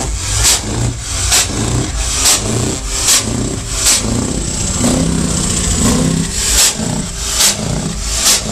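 Footsteps crunching on gravel at an even walking pace, about one step a second, over a steady low rumble.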